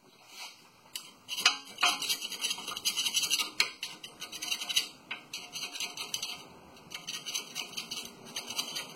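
Small stiff acid brush scratching and dabbing lubricant onto metal brake hardware in quick strokes, with light metallic clinks. The scratching comes in busy patches, from about a second and a half in and again near the end.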